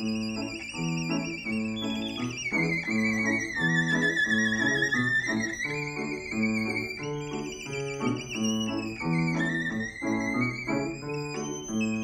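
Violin and Steinway grand piano playing a jazz tune. The violin holds long high notes with vibrato, sliding down in pitch twice, over steady rhythmic chords on the piano.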